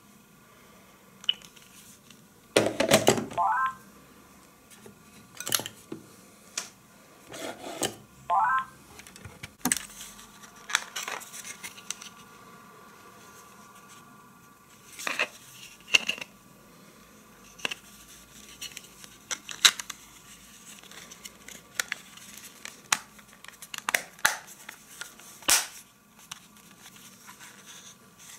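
Plastic handling noises from a T-Com Sinus 400 cordless phone handset as its battery cover is slid off and back on. There are two scraping slides rising in pitch, about 3 and 8 seconds in, followed by a string of sharp clicks and knocks.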